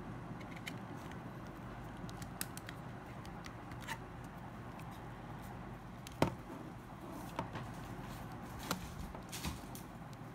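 Scattered small clicks and taps of tools and phone parts being handled during a phone repair, the sharpest about six seconds in, over a steady low hum.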